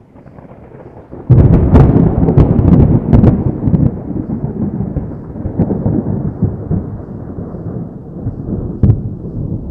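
Thunder: a sudden loud crack about a second in, then a long rolling rumble with a few more cracks, slowly fading away.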